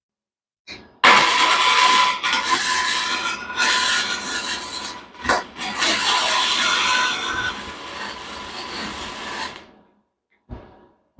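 Welding on steel motorcycle engine mounts: a loud, crackling arc hiss that runs for about nine seconds, broken by a few short stops and restarts, then cuts off.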